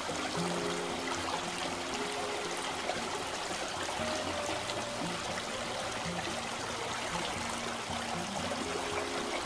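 Water of a small river running over its bed, a steady, even rushing hiss with trickling.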